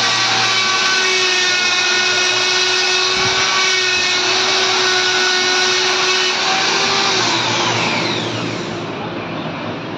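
Electric angle grinder running at speed, a steady high whine as it grinds against a painted idol. Near the end it is switched off, and its pitch falls as the disc spins down.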